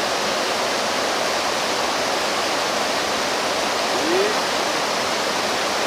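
Steady rushing of flowing water, an even hiss with one short rising note about four seconds in.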